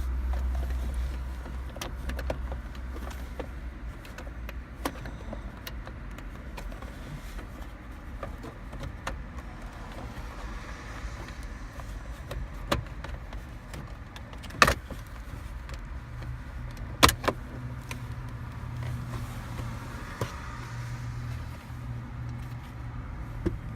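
Scattered sharp clicks and knocks of hands and tools working at plastic car-interior trim around the wiper switch, the two loudest about two and a half seconds apart, over a low steady hum.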